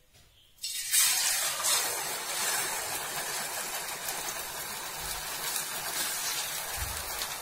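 Batter-coated pappadam going into hot coconut oil: the oil bursts into a sizzle just under a second in and keeps frying with a steady, loud hiss.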